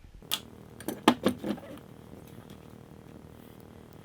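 A few light metallic clicks and clatters of small stove door hardware being worked loose and handled, bunched in the first second and a half, then only a low steady background hum.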